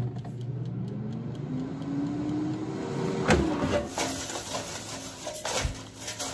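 Air fryer basket of fries being handled and shaken: a hum rising in pitch over the first few seconds, then a knock about three seconds in and a few lighter knocks and rattles as the basket and fries are moved.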